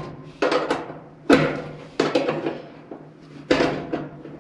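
Screwdriver knocking and prying at the metal retaining clip of a clothes dryer's motor mount: about seven sharp knocks at uneven intervals, with a faint steady low hum underneath.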